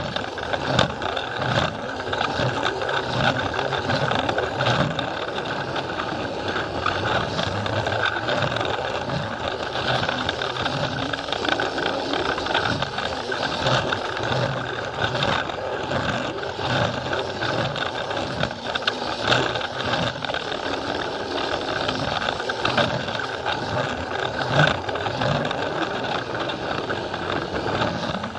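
Plarail toy train's small battery motor running and its wheels rattling and clicking over plastic track, heard close up from a camera riding on the train.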